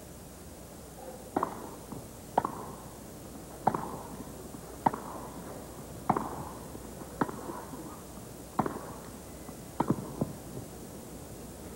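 Tennis rally: rackets striking the ball back and forth, about seven sharp pops a second or so apart, then a quick cluster of three knocks near the end.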